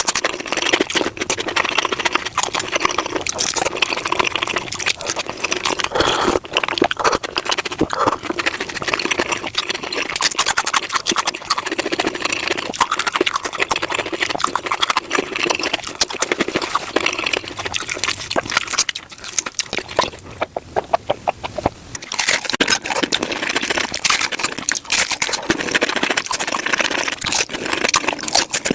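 Close-miked eating of tacos played back at five times speed: a rapid, dense stream of crunching and chewing clicks, easing off briefly about two thirds of the way through.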